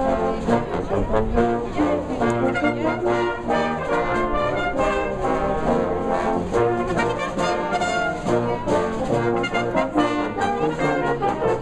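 A Salvation Army brass band playing a piece together: cornets, horns and low brass sounding in harmony, with the notes changing steadily throughout.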